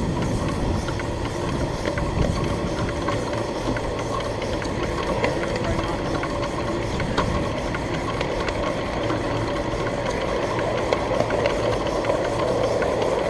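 1/8-scale ride-on miniature train running steadily: a continuous mechanical drone with faint scattered clicks.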